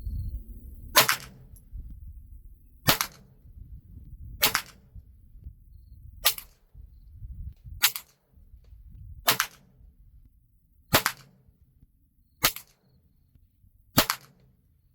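Slow, steady single shots from a .22 LR firearm firing Federal AutoMatch rounds for a group: nine sharp reports, about one every one and a half to two seconds, beginning about a second in.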